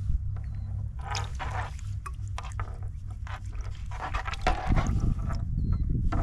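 Water poured from a plastic water bottle splashing onto walleye fillets on a plastic cutting board as they are rinsed and rubbed by hand, in several short spurts, the loudest about four and a half seconds in. A steady low rumble runs underneath.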